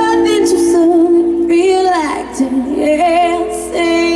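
Live music: a woman singing long held notes with wide vibrato, with no clear words, over steady sustained chords. Her voice slides down near the middle and comes back in about three seconds in.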